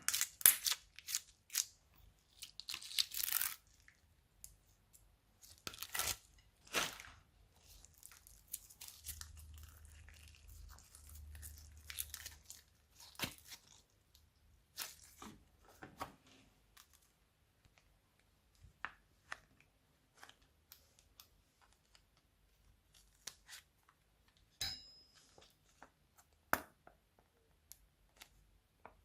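Slime being stretched, squished and mixed by hand: scattered sticky crackles and clicks, with a few longer tearing bursts and quiet gaps between them.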